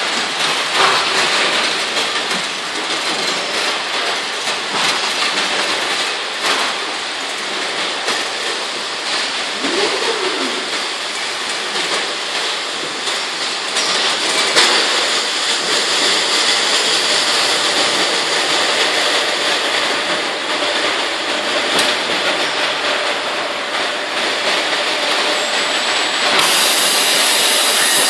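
Steady mechanical running noise of a carton packaging line's powered roller conveyors, with faint scattered knocks. About two seconds before the end it turns into a brighter, steadier hiss.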